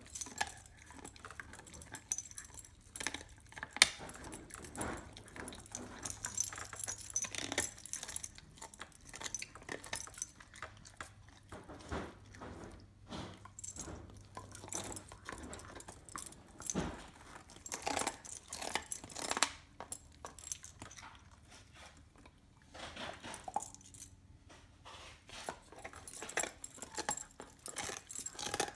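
A dog gnawing a raw marrow bone: irregular crunching, scraping and sharp clicks of teeth on bone, the sharpest click about four seconds in.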